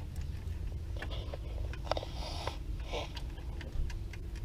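Light clicks and brief scraping of a hand tool and wires being worked inside a metal electrical disconnect box, over a steady low rumble.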